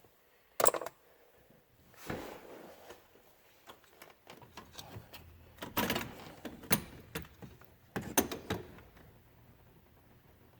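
Scattered clicks, knocks and light plastic rattles from steering-column parts being handled during ignition lock cylinder housing replacement, the sharpest click about half a second in.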